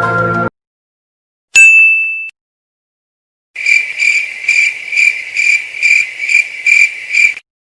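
A single bright 'ting' chime sounds about one and a half seconds in and fades within a second. It is followed by a cricket-chirping sound effect: evenly pulsed high chirps, about two a second, lasting nearly four seconds.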